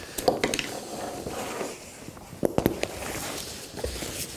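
Kriega OS 12 luggage bag being handled and opened on a wooden table: fabric rustling and scraping, with scattered sharp clicks, two strong ones close together about two and a half seconds in.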